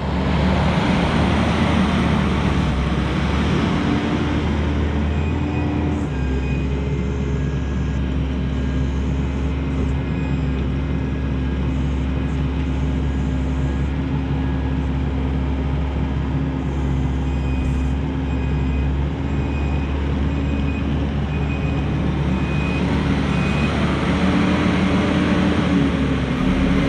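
Kubota SVL90-2 compact track loader's diesel engine running steadily under work, its pitch shifting slightly about six seconds in and again near the end, with a faint high whine coming and going.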